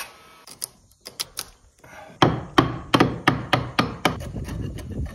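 A wood chisel being driven into a wooden beam, breaking out the slices of wood between saw kerfs. It starts with a few light knocks and then settles into steady sharp knocks, about three a second, from two seconds in.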